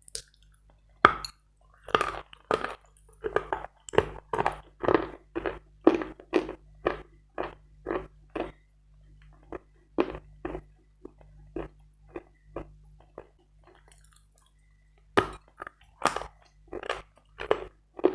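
A person biting into a hard piece of wet Bogorodsky chalk with a sharp crunch about a second in, then chewing it with crunching chews about two a second that grow fainter. After a pause, a second bite and more crunchy chewing near the end.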